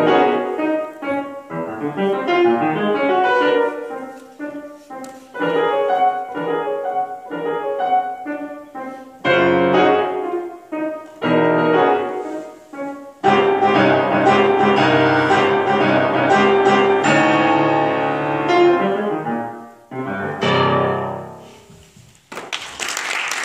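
Grand piano played solo: quick, crisp runs of notes broken by short pauses and heavy low chords, building to a dense, loud passage, then a last chord that rings and fades. Applause breaks out near the end.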